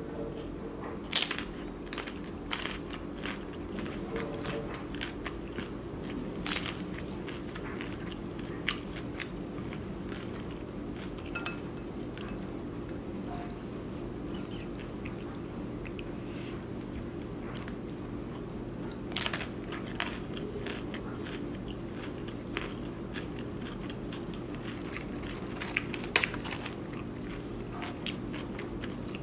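Crisp corn tostadas crunching as they are bitten, topped with crab-and-shrimp ceviche, with chewing in between. The sharp cracks come at scattered moments over a steady low hum.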